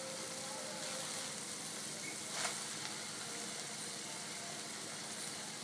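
Pan of zarda, rice cooked in sugar and ghee, sizzling steadily over the flame as it is stirred with a spoon, with one light tap of the spoon about halfway through.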